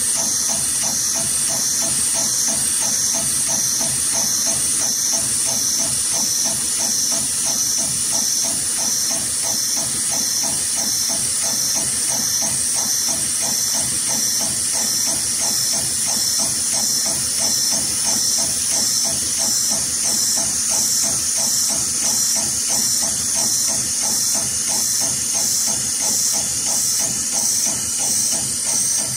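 HighTex 733PLC extra-heavy-duty programmable pattern sewing machine running steadily, stitching through stiff braided rope: an even, rhythmic run of stitches under a loud, steady hiss.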